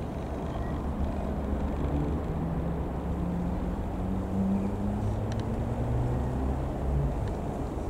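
Reims Cessna F172N Skyhawk's four-cylinder Lycoming piston engine and propeller droning as the plane flies over, the pitch drifting slowly as it passes.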